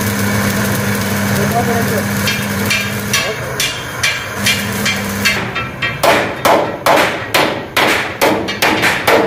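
Hammer striking the steel frame of a tractor trolley: light metallic taps from about two seconds in, then loud ringing blows about two a second from about six seconds in. A steady low hum runs under the first half.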